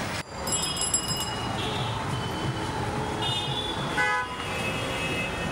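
Busy street traffic running steadily, with vehicle horns tooting several times; a short horn blast stands out about four seconds in.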